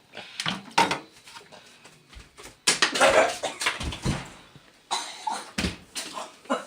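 A pot and utensils knocking and clattering in a string of separate sharp knocks, busiest about a third of the way in and again near the end.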